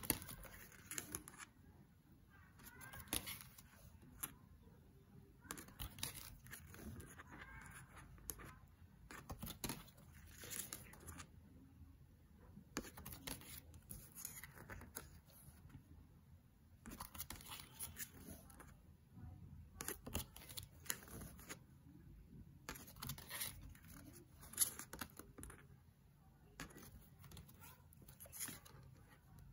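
Tarot cards of fairly thick cardstock handled one by one: faint slides and flicks as each card is drawn off the deck and laid on the pile, every second or two.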